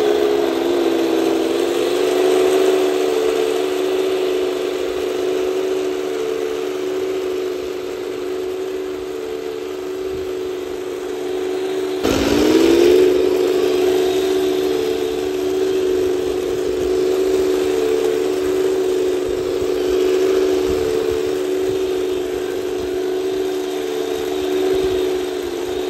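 Heng Long 1/16 RC Panzer IV F-2 tank driving through sand: a steady engine drone from its onboard sound unit, mixed with the whine of its drive motors and steel gearbox. About halfway through, the pitch drops low and climbs back up within a second, then holds steady again.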